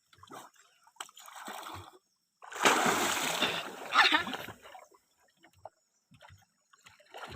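Water splashing loudly for about two seconds, beginning about two and a half seconds in and peaking again near the four-second mark, with small scattered knocks and splashes around it.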